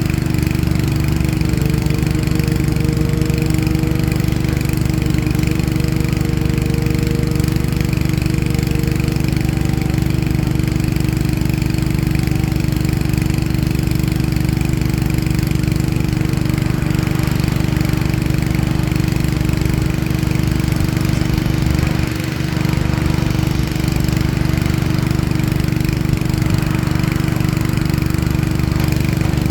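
Large diesel engine of heavy earthmoving machinery running steadily with an even, constant drone.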